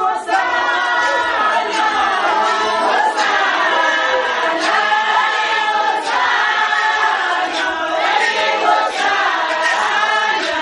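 A congregation singing together, many voices at once, with a sharp beat roughly every second and a half.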